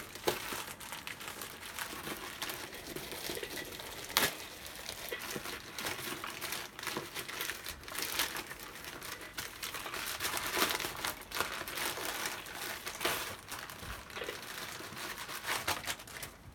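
Plastic courier mailer bag crinkling and tearing as it is pulled open by hand, a steady crackle of many small clicks with one louder crackle about four seconds in.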